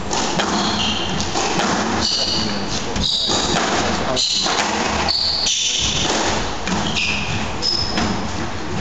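Squash rally: the ball thudding off rackets and the court walls, and players' shoes squeaking in short, high chirps on the court floor as they lunge and turn, over a murmur of spectators.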